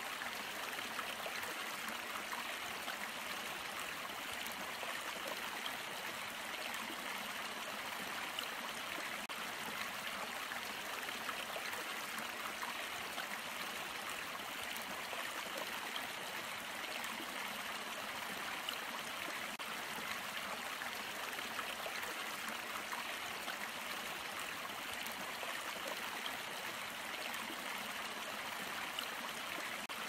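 Shallow stream flowing over rocks: a steady, even rush of water, mostly in the middle and upper range with little deep rumble.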